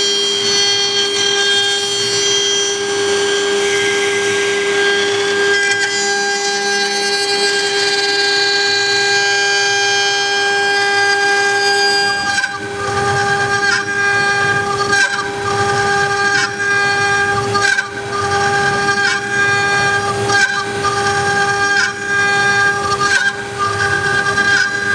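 HG-1325 CNC router's spindle whining steadily as its bit carves wood. After a cut about halfway through, the cutting sound dips and swells in a regular pulse about every second and a half.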